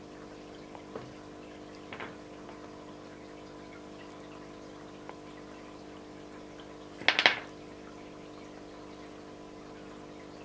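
Wet moss-covered lava rock handled in the fingers over a dish of water, giving faint clicks and a short crackling burst about seven seconds in. A steady hum runs underneath.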